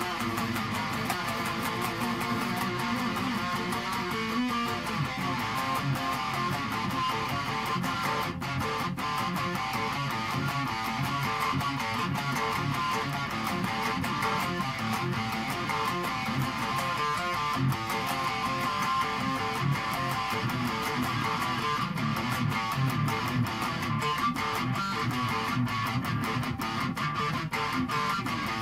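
Electric guitar strummed hard and fast, playing a continuous hard-rock riff.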